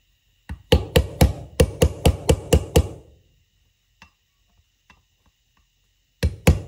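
Mallet tapping a pressed-in part down into a Weber 44 IDF carburetor body to seat it flush: a quick run of about ten sharp taps, roughly four a second, then a pause of about three seconds with a few faint ticks, and the tapping starting again near the end.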